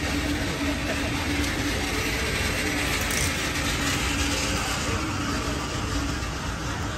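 Street traffic: a steady hum of vehicle engines running along the road, with a faint engine drone that fades out about three seconds in and briefly returns.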